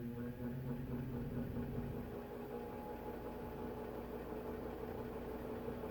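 Vintage Servess box fan, made by Air King, running on low speed: its electric motor gives a steady hum, with the vibration that shows on medium and low.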